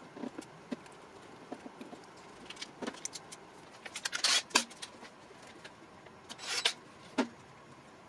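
Faint clicks and rattles of wire leads, cable and small tools being handled at a motor's terminal box. Two short, louder rustling scrapes come about four seconds in and again about six and a half seconds in.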